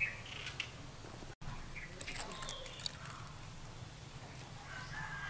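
Quiet outdoor ambience with a steady low hum and a few short bird chirps. A cluster of light clicks comes about two seconds in.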